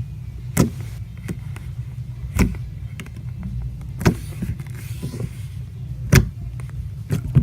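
Putty slime being squeezed and poked by hand, giving sharp pops and clicks about every one to two seconds over a steady low hum.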